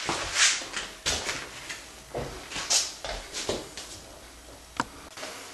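Irregular rustles and soft knocks of a person shifting and getting up off a foam exercise mat on a laminate floor, with one sharp click about five seconds in.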